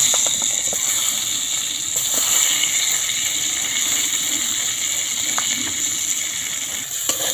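Chunks of peeled ridge gourd sizzling in hot oil in a kadai: a loud, even frying hiss, with a few faint ticks in the first second.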